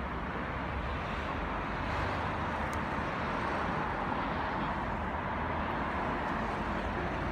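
Steady road traffic noise: cars going past on a city street, an even rushing hum with no single event standing out.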